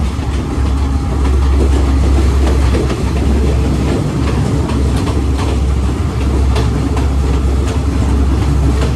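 Cabin sound of a moving Sri Lanka Railways S14 diesel multiple unit: a steady, loud low rumble from the running train, with scattered clicks and rattles from the wheels and the carriage.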